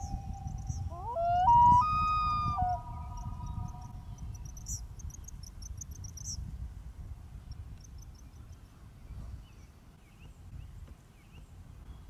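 Common loons wailing to each other: a long call carrying over from before fades about a second in as the mate answers with a wail that climbs steeply in pitch, holds loud for over a second, then breaks off, with a fainter note trailing on. Faint high chirps sound above the calls for the first few seconds.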